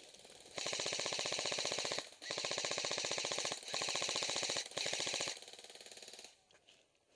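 Airsoft electric gun firing full-auto in several long bursts of rapid, evenly spaced shots, the last burst quieter.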